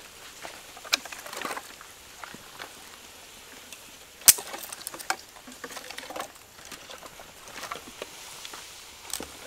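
Pieces of firewood being handled and worked by hand: scattered light clicks, knocks and scraping of wood on wood, with one sharp click about four seconds in.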